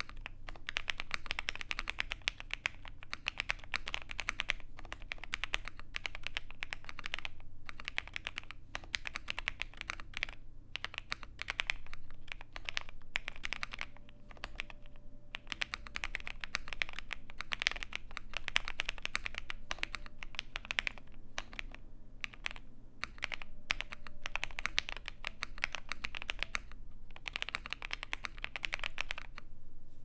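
Zoom65 mechanical keyboard with Jwick switches, doubleshot PBT keycaps and an all-foam build, typed on steadily: a dense run of keystroke clacks with a few brief pauses.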